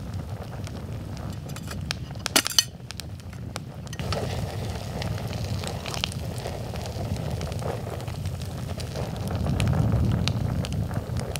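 Campfire crackling and popping over a low rumble of wind on the microphone, with a quick cluster of louder pops about two and a half seconds in.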